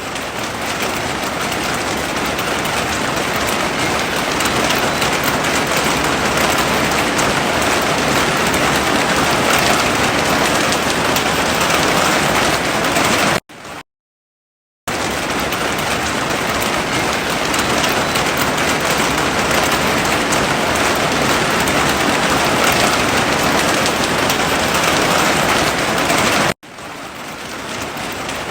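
Heavy rain falling steadily, a dense even hiss. It cuts out completely for about a second about halfway through, then returns. Near the end it cuts abruptly and fades back in.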